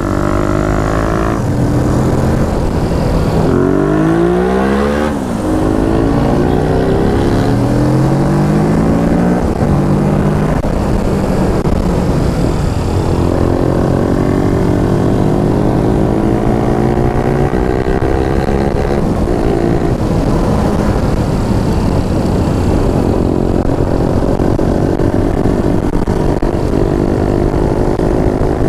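Kawasaki Ninja 650's parallel-twin engine running under way. The revs climb and then drop sharply about five seconds in, as at a gear change, then rise and fall slowly with the throttle.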